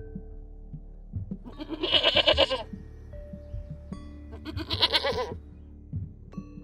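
Two loud, wavering bleats, the first about one and a half seconds in and the second about four seconds in, each lasting about a second, over background music.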